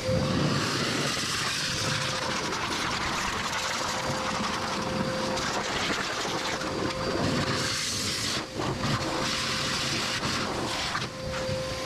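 Electric car-dryer blower running, a steady motor whine over a rush of air blasting through the engine bay to knock loose dust and debris off. The rushing air dips briefly twice.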